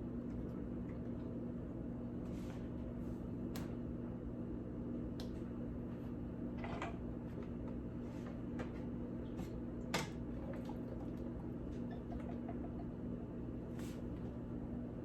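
Steady low hum with a handful of light clicks and knocks spread through, the clearest about ten seconds in, as the lid of an electric pressure canner is opened after its cycle.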